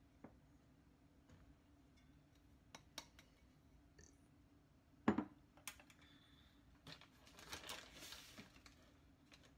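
Faint clinks of a ceramic bowl against a stainless steel mixing bowl as 200 g of flour is tipped in, with one sharp knock about five seconds in and a soft rustle of sliding flour near the end.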